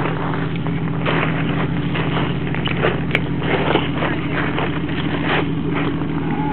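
Jeep Wrangler TJ engine running at a steady low speed while the Jeep crawls on a steep, rutted hill climb. Irregular crunching and crackling on loose rock sounds over it from about a second in until near the end.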